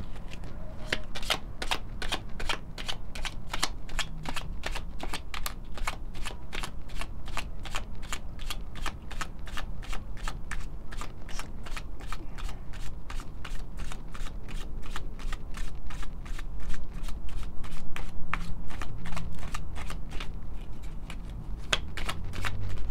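A stack of round tea-leaf fortune cards shuffled by hand: a steady run of crisp card clicks, about three or four a second.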